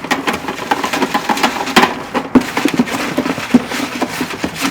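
Raffle tickets being shaken up in a container: a continuous, irregular rattling and rustling of many small clicks.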